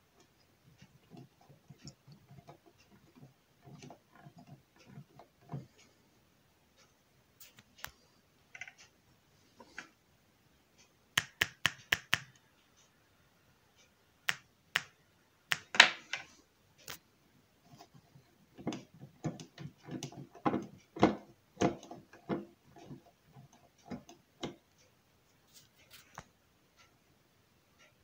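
Irregular clicks and pops as hand-held leads from a homemade switch-mode power supply's output are touched to a loudspeaker's terminals. The sharpest snaps come near the middle, followed a few seconds later by a run of quick crackly pops.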